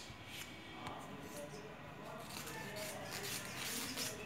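Cotton fabric rustling and sliding as cut petticoat panels are pulled apart and spread out by hand, a string of quiet soft rustles that gather in the second half.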